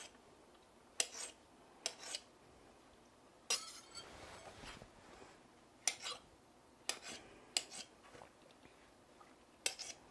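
Kitchen knife cutting up shiitake mushrooms: about seven separate sharp taps of the blade coming down, spaced irregularly, with a longer scraping sound about four seconds in.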